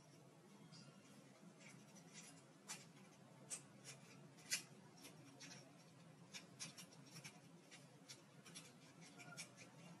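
Faint, irregular clicks and rubbing of plastic parts and wires being handled: a hair dryer's housing, handle cover and rocker switch being fitted together by hand, with one slightly louder click about four and a half seconds in.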